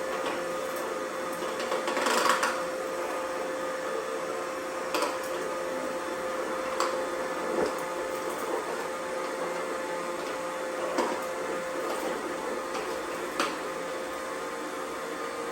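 Cheap robot vacuums running: a steady small-motor whir with a constant hum, broken by scattered clicks and knocks and a louder rattle about two seconds in.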